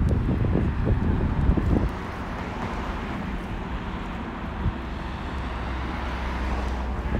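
A vehicle passing on the street, its noise swelling over a few seconds and fading near the end. Wind buffets the microphone in the first two seconds.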